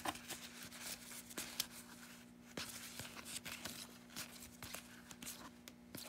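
Rigid plastic card holders clicking and rustling against each other as a stack of sports cards is flipped through by hand, many small irregular clicks. A faint steady low hum runs underneath.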